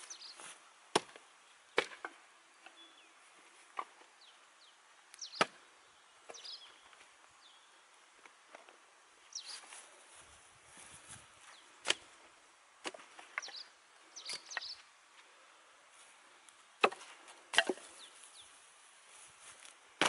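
Dry dead sticks and branches knocking together as they are laid around the rim of the sunken tub: a dozen or so irregular, sharp wooden knocks, with some rustling in between.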